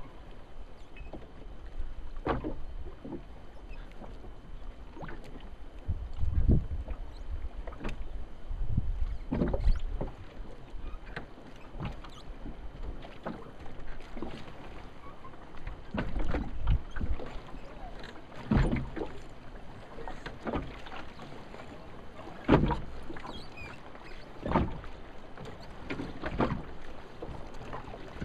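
Scattered knocks and bumps of someone moving about in a small jon boat, over a low rumble that swells a few times, with the sharpest knock about two-thirds of the way through.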